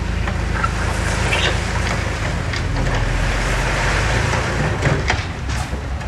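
Diesel engine of heavy earthmoving equipment (a small bulldozer or dump truck) running steadily, with a few sharp metallic clanks.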